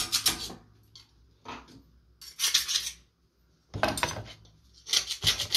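Metal parts and hand tools clinking and rattling in about five short bursts, with near-silent gaps between them, as a Volkswagen Beetle's vent-window assembly is handled for refitting.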